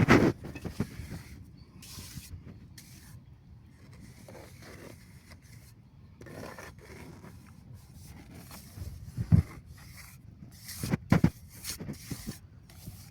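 Mason's trowel scraping and smoothing wet cement mortar in short strokes, with a few sharp knocks a little after the middle.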